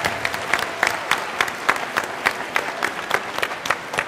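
Audience applauding in an auditorium, with one pair of hands clapping loud and steady above the crowd, about three to four claps a second.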